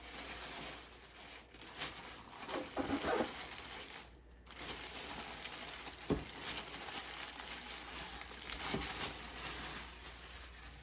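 Packaging being handled during unboxing: irregular rustling and crinkling, with a short pause a little before halfway and a dull knock about six seconds in.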